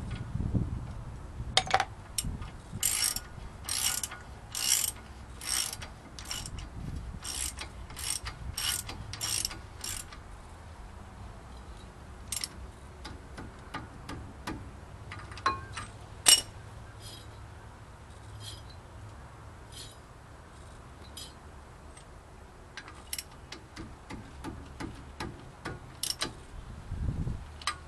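Hand socket ratchet clicking as it turns the nut at the centre of a front wheel hub, in a steady run of strokes at roughly one and a half a second. The clicks thin out and grow fainter in the middle, then pick up again near the end.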